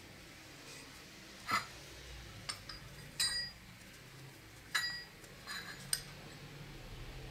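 Rusty old bicycle bell giving about seven short metallic clinks, some with a brief ring, as it is worked by hand. The loudest come about one and a half, three and five seconds in.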